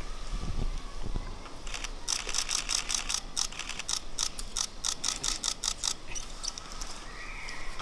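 A rapid run of sharp mechanical clicks, about five a second for several seconds, then stopping.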